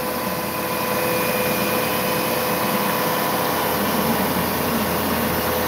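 Langmuir Systems MR-1 CNC mill taking a cut in mild steel with a carbide end mill spinning at 5,000 RPM, with mist coolant blowing. A steady, loud cutting noise with a constant tone in it.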